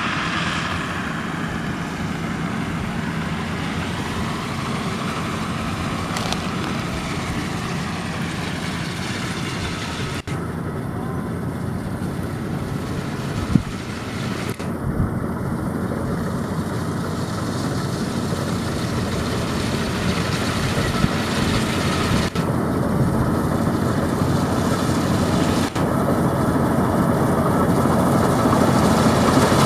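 Combine harvester running steadily at work in a rice field, engine hum under the threshing and cutting noise, with one sharp click about 13 seconds in and the level rising slightly near the end.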